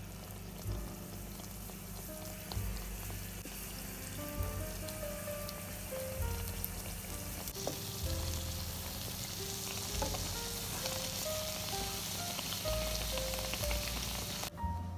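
Yeast-dough donut strips frying in shallow hot oil in a pan, with a steady sizzle that grows louder about halfway through.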